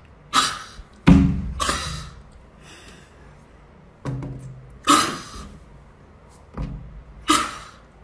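Hands knocking and slapping on a glass door pane: about seven knocks at uneven intervals, some light and sharp, the heavier ones with a dull low thud as the glass flexes.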